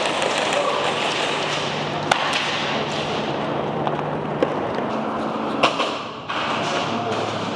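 A body-worn camera rustling and rushing as its wearer runs, easing off about six seconds in, with a few sharp cracks of airsoft gunfire.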